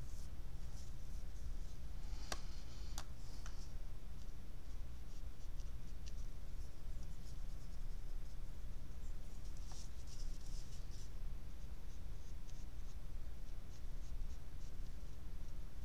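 Soft scratching of a watercolour brush working on paper and in the paint palette, in a few short spells, with a few small clicks about two to three seconds in. A steady low hum runs underneath.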